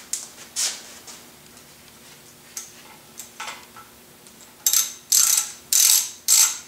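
Hand socket ratchet clicking while an oil pan bolt is backed out: two short clicks just after the start, then about five quick back-and-forth strokes of rapid clicking in the second half.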